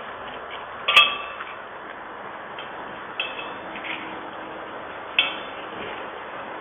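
Small metallic clinks with a brief ring as the sweets are handled over a stainless-steel pot: a sharp one about a second in, then lighter ones near 3 s and 5 s, over faint steady hiss.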